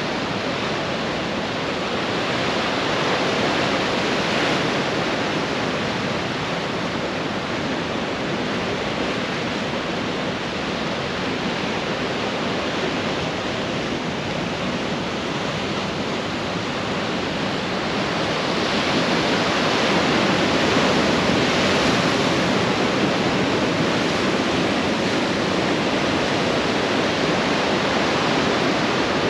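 Ocean surf washing onto a sandy beach: a steady rush of waves, swelling louder as waves break about four seconds in and again about eighteen to twenty-three seconds in.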